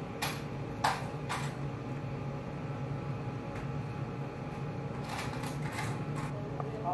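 Restaurant room tone with a steady low hum. Over it come a few sharp clicks and clinks of chopsticks and tableware: three in the first second and a half, and a few more around five to six seconds in.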